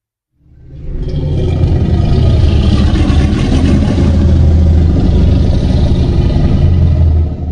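A loud, dense rumbling sound effect with a rough, crackling edge, swelling up within about a second, holding steady for several seconds, then falling away near the end.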